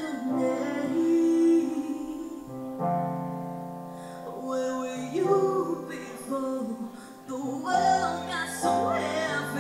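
A woman singing a song live into a microphone, over held keyboard chords that change every couple of seconds.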